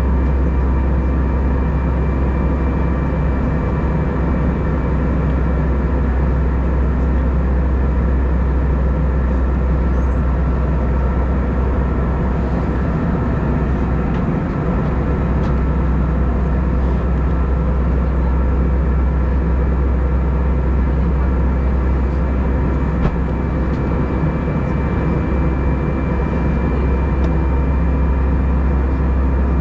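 Steady cabin drone of an Airbus A320 in flight, heard from inside the passenger cabin: engine and airflow noise with a deep rumble and a few steady hum tones, unchanging throughout.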